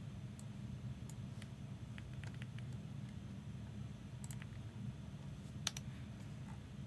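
Scattered light clicks of a computer keyboard and mouse, a dozen or so spread irregularly and one sharper click a little before the end, over a steady low hum.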